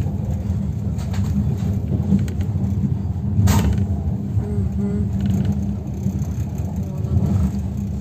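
Steady low rumble of a passenger train running, heard from inside the carriage, with one sharp knock about three and a half seconds in.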